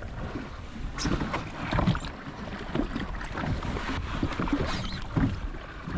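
Sea water slapping and lapping against the hull of a drifting jet ski, with wind on the microphone and a few scattered knocks from gear being handled on board.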